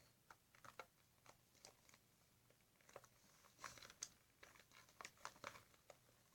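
Faint sticky crackling and small pops as fluffy shaving-cream slime is kneaded and pulled by hand, in irregular clusters.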